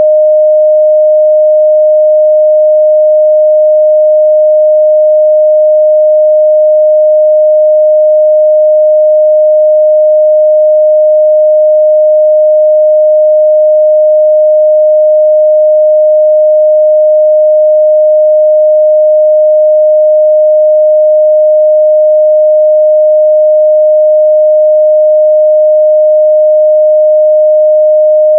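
Steady 614 Hz sine-wave test tone: a single pure, unwavering midrange pitch held at a constant loud level.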